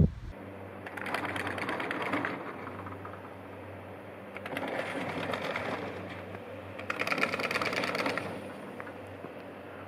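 Chairlift haul rope and chair grips running over a tower's sheave wheels: a fast mechanical clatter that swells up three times, over a low steady hum.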